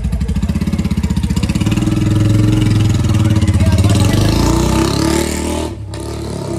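Royal Enfield single-cylinder motorcycle with a long-bottle 'Long Punjab' aftermarket silencer, running with an even thumping exhaust beat. The beat grows louder, then rises in pitch as the bike pulls away, and the sound drops off abruptly near the end.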